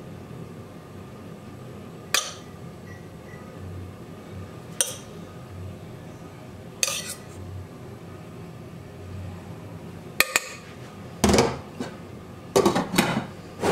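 Metal spoon clinking against a stainless steel pot and plates as saffron rice is spooned out: single clinks a couple of seconds apart, then a cluster of louder knocks near the end as the pot is lifted away.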